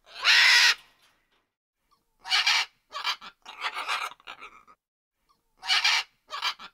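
Macaw squawking: a long, loud, harsh screech at the start, then bursts of shorter harsh squawks from about two seconds in.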